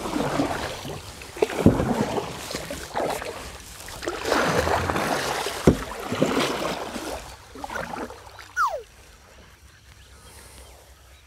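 Kayak paddle strokes splashing through the water in swells every second or two, with a few sharp knocks. A single falling whistle comes near the end.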